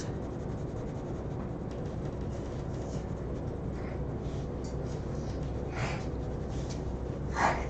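Graphite pencil shading on paper: irregular short scratchy strokes over a steady low background hum.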